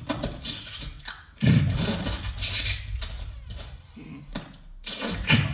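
A man's voice into a microphone making quick, unintelligible mouth sounds instead of words: choppy hisses, clicks and short voiced bursts, with the loudest stretch of hissing about a second and a half in.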